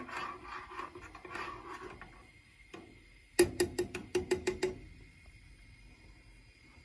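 Metal teaspoon stirring coffee in a stainless-steel cezve with faint scraping clinks, then tapped against the pot's rim about seven times in quick succession, each tap ringing briefly.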